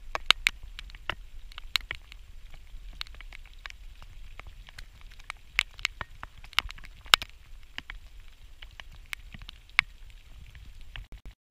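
Light rain falling on a still pond: irregular sharp plinks and taps of single drops hitting the water, a few each second, over a steady low rumble.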